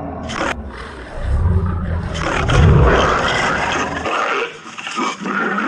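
Lions roaring in a fight, several loud roars one after another, with a deep rumble that stops abruptly about four seconds in.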